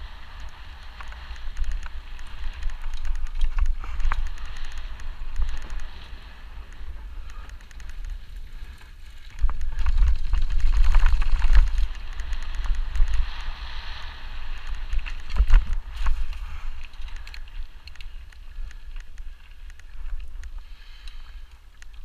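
Mountain bike riding down a dirt trail, heard from a camera on the rider: wind buffets the microphone with a low rumble over the hiss of tyres rolling on dirt, with scattered clicks and rattles from the bike over bumps. The rumble swells loudest from about ten seconds in for a couple of seconds.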